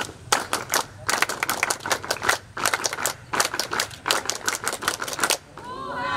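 A crowd of scouts clapping in unison, doing the Pramuka clap twice in its patterned rhythm of grouped claps. Near the end the clapping stops and the crowd starts shouting together.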